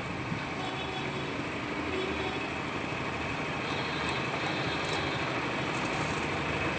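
A steady whirring hum with no warning beep from the inverter after it is switched on, which suggests the beep fault is cured. A sharp click comes at the very end.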